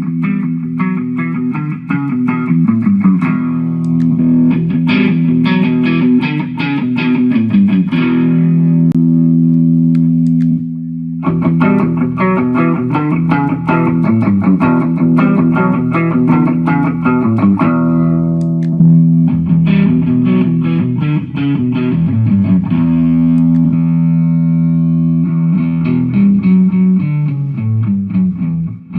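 Distorted electric guitar played through a Mooer GE150 multi-effects processor: rapid picked notes over sustained low notes, with a short break about ten seconds in.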